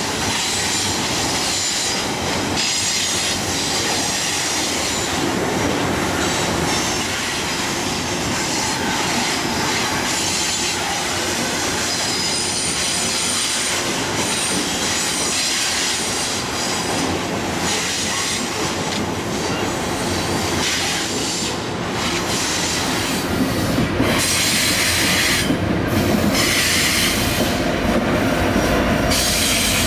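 Double-stack container train rolling by on a curve: steel wheels squealing against the rail with a steady rumble and clatter of the cars. In the last few seconds the sound gets louder and heavier as a mid-train distributed-power diesel locomotive passes.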